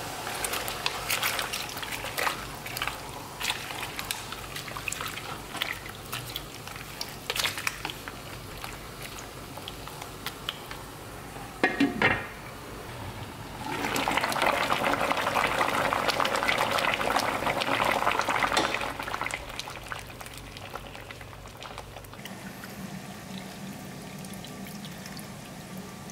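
Cabbage leaves cooking in a little water in a lidded frying pan: a crackling sizzle with scattered pops. A pot lid clinks twice about twelve seconds in, then comes a louder hiss of boiling water lasting about four seconds.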